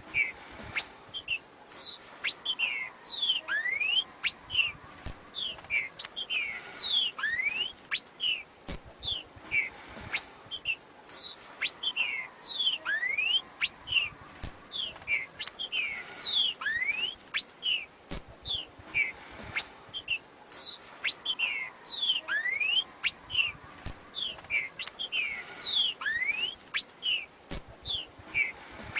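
Female green-winged saltator (trinca-ferro) giving its 'macheado' call: rapid runs of short, high, downward-slurred chirps, broken now and then by a rising whistled note.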